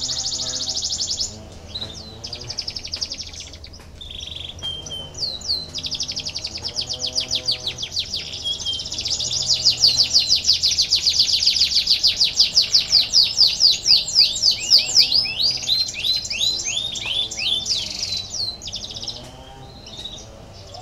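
Canary singing long rolling trills: strings of very fast repeated notes, running densest and loudest through the middle, with short breaks near the start and a lull near the end.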